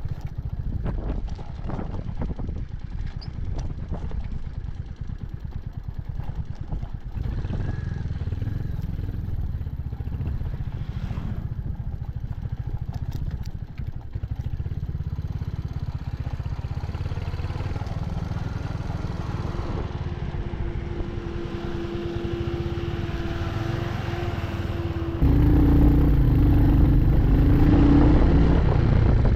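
Royal Enfield Hunter 350's single-cylinder engine running as the motorcycle is ridden, with a low rumble from the road and wind. About 25 seconds in, the sound gets suddenly louder and stays so.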